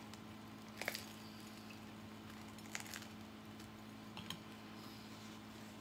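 Faint chewing and mouth sounds of a man eating a bagel: a few soft, scattered clicks over a steady low hum.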